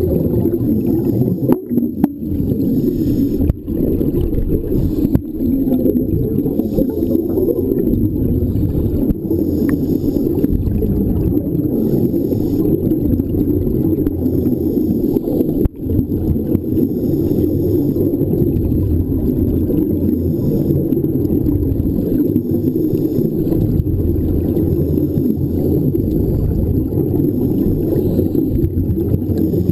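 Steady, muffled low rumble of underwater sound picked up through a camera's waterproof housing on a scuba dive, with a faint hiss of exhaust bubbles recurring every second or two and a few brief drops in level.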